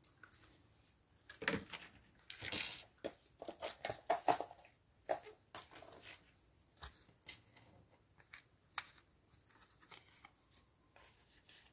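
Cardstock being handled on a wooden tabletop: rustling and sliding of paper, with scattered small clicks and taps from tools and tiny metal parts. The handling is busiest for a few seconds near the start, then thins to occasional light clicks.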